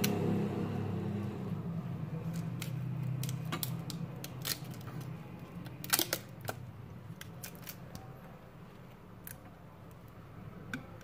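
Scattered sharp clicks and light taps from a mobile phone and small tools being handled during reassembly. The loudest is a double click about six seconds in. A low hum fades out over the first few seconds.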